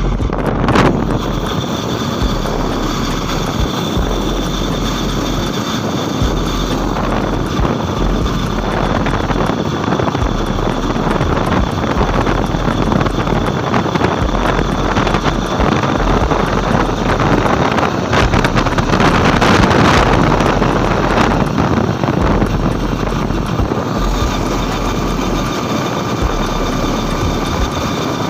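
Honda Unicorn 150's single-cylinder four-stroke engine running after a ride: a steady, dense, rushing engine sound that swells louder for a few seconds about two-thirds of the way through.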